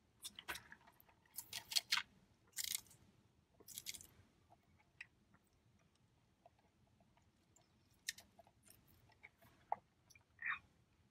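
Close-miked chewing of a cheeseburger: wet mouth clicks and smacks, busiest in the first four seconds, then sparser and quieter.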